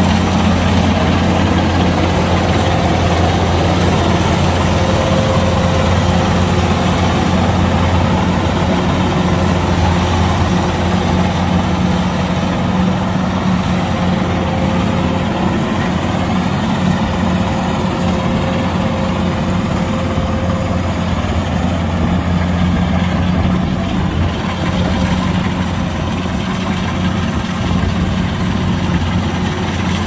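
Kubota DC-105X diesel combine harvester running at a steady working speed while it cuts and threshes rice, a constant deep drone with mechanical clatter over it.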